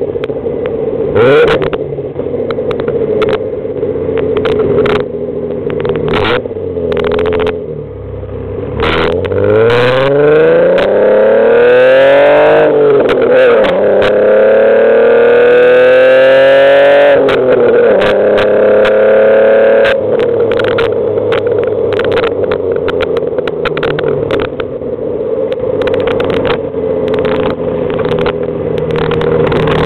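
Alfa Romeo GTV-6 V6 engine through an Ansa exhaust, heard from the rear of the car: cruising, then accelerating hard, its pitch climbing and dropping at a gear change about twelve seconds in, climbing again and dropping at a second shift near seventeen seconds, then settling to a steady cruise.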